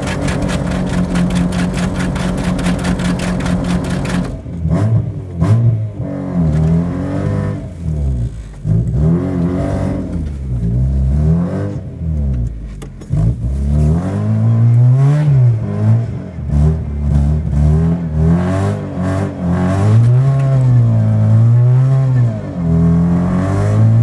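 Mazda Miata's four-cylinder engine held at high revs for about four seconds, then revved up and down again and again, its chained rear wheels spinning in deep snow.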